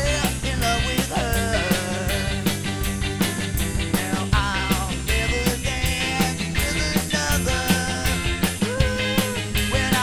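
Rock band music with a steady drum beat and a bending, pitched lead line over it.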